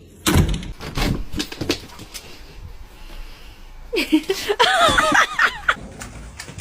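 A few short knocks, then a dog whining in a high, wavering pitch for about a second and a half, reluctant to step onto the snow.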